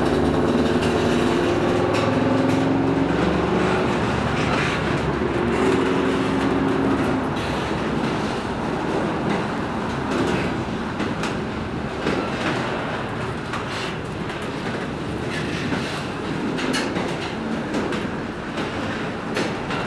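Double-stack container train rolling past at close range as it gets moving again after being recoupled: a steady rumble of the cars' wheels on the rail, with a wavering squeal in the first several seconds and scattered clicks and clanks of wheels and couplings later.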